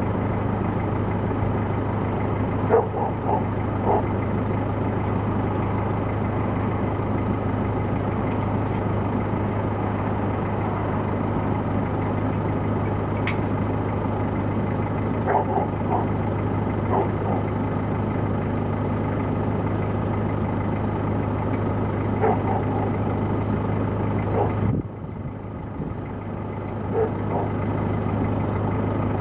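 A loud motor running steadily with a constant low hum, broken by a few short knocks and clatters. About 25 seconds in it briefly drops in level, then picks back up.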